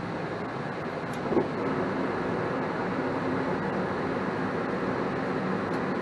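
Goodman 80% single-stage gas furnace running with its burners lit, a steady mechanical hum. There is a brief light knock about a second and a half in.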